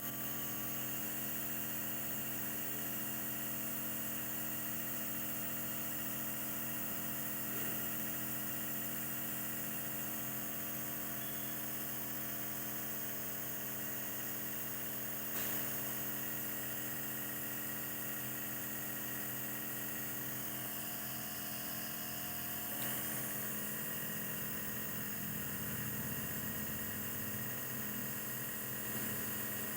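Compressor nebulizer running steadily: an even motor hum with several held tones that does not change in pitch or level, with a couple of faint knocks about halfway and two-thirds of the way through.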